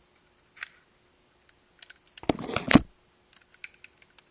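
Small metal parts of a spinning reel's bail being handled while a new bail spring is worked into its hole: light clicks and scrapes, with a dense flurry of clicking a little over two seconds in, then scattered ticks.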